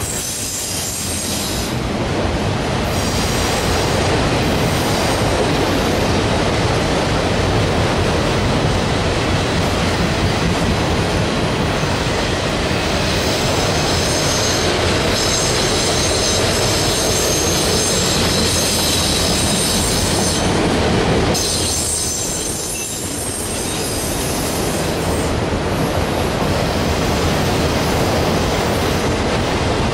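Freight train cars rolling past close by, their wheels squealing high and steadily over the rumble of the train, with a brief lull a little after the middle.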